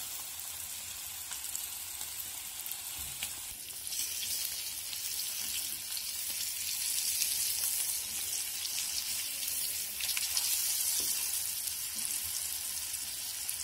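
Rice-flour-coated surmai (king mackerel) steaks sizzling as they shallow-fry in oil on a tawa, a fresh raw piece just laid into the hot oil. The sizzle is steady and grows louder about four seconds in.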